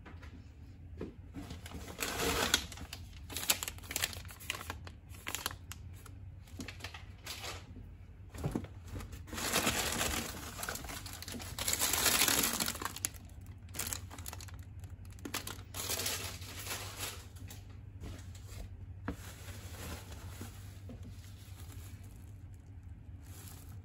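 Paper and plastic grocery packaging rustling and crinkling as items are handled and lifted out of a paper shopping bag. The sound comes in several bursts, the longest about ten to thirteen seconds in, with light knocks in between.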